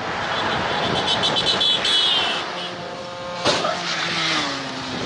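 A motor vehicle passing on the road: its noise swells, then its engine note falls steadily in pitch as it goes by. A sharp knock sounds about three and a half seconds in.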